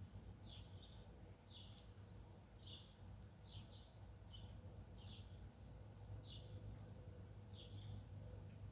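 Faint bird chirping over and over, short high calls repeating about twice a second.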